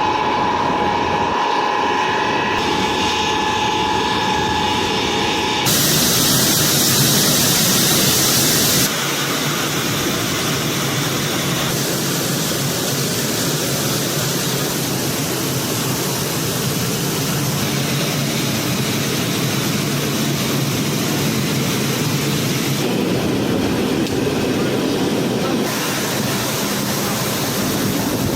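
Ilyushin Il-76 transport's turbofan engines running, a steady noise with a high whine through the first few seconds. The sound changes abruptly several times.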